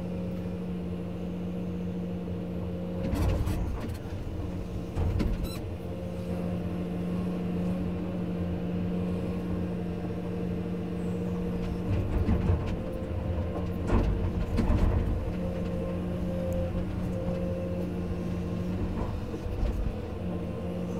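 Komatsu PC210 excavator's six-cylinder diesel running under load as the bucket digs out a tree stump, its steady hum dropping out and returning several times. A few heavier knocks and thuds come through, about three and five seconds in and again twice later on.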